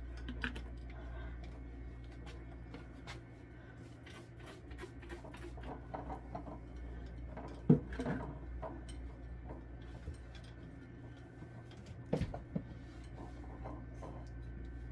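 Scattered knocks and clatter of things being handled inside an open refrigerator, with a sharp knock about eight seconds in and a couple more about twelve seconds in, over a steady low hum.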